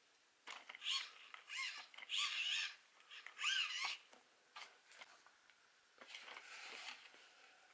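Plastic steering linkage of a 1/10 RC truggy squeaking as it is worked back and forth by hand: four short squeals that bend up and down in pitch, then softer rustling as the chassis is handled.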